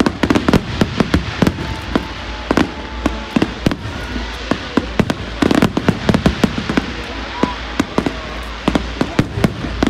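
Aerial fireworks display: shells bursting in rapid, irregular sharp bangs, several a second, over a steady background hiss, with a denser run of louder bangs about halfway through.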